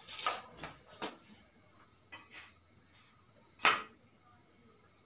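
A few short scrapes and knocks of a metal spatula on a hot griddle (tawa) as a spinach paratha is turned and pressed, the loudest knock near the end.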